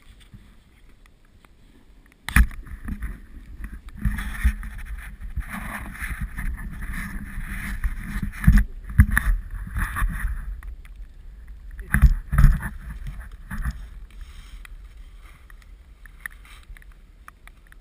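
Skis sliding and scraping through soft, wet snow, picked up by a GoPro's microphone along with a low rumble. A sharp knock comes about two seconds in, and the scraping surges louder twice around the middle, as in turns, before settling down.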